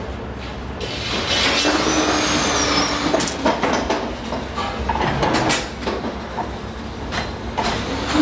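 Electric rebar bending machine running with a steady hum, while steel reinforcing bars clank and scrape against it and each other, with several sharp metal knocks.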